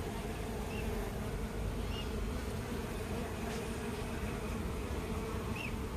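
Steady hum of a honeybee colony, many bees buzzing over the comb of an opened hive.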